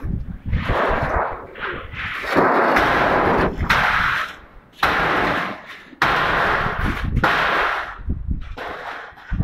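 Corrugated metal roof sheets being wrenched off a steel roof frame: a run of loud metallic crashes and clattering, each a second or two long, the sharpest about six seconds in.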